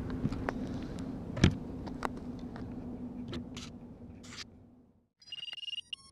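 Handling clicks and a sharp knock over a low steady hum as a miniquad carrying a GoPro is set down on a wooden board. The sound drops out abruptly about five seconds in, and music with bell-like tones begins.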